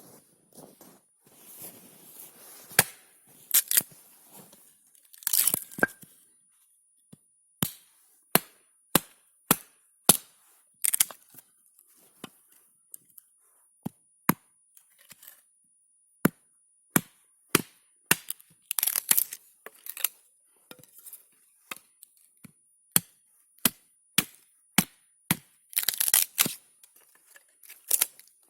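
Dry wood cracking and snapping in a series of sharp strikes, mostly about one a second with a few quick clusters, and some rustling in the first few seconds.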